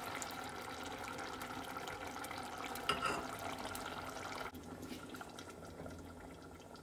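Chicken pieces bubbling in liquid in a steel saucepan while thick jarred tikka masala sauce is poured in and stirred through. There is a single knock about three seconds in, and the hissing drops off about four and a half seconds in.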